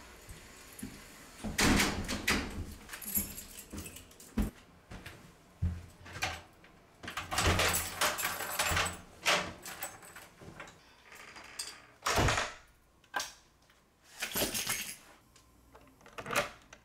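A door opening and closing, footsteps, and keys jangling, with a key worked into a door lock near the end: a string of separate clatters and rustles with dull knocks between them.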